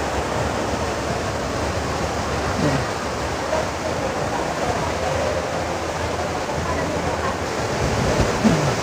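Steady rushing of the Rain Vortex, a tall indoor waterfall falling through an opening in a glass dome into a pool below.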